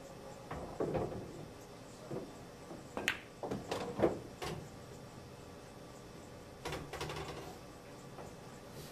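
A pool cue tip strikes the cue ball, followed by the sharp clicks of billiard balls hitting each other and the cushions. There is a cluster of clicks about three to four and a half seconds in, and a few more around seven seconds.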